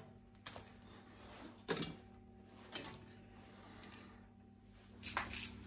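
Hard plastic spiral cable wrap being worked by hand onto a rubber hydraulic hose: scattered clicks and rustles, the loudest about two seconds in and a cluster near the end, over a steady low hum.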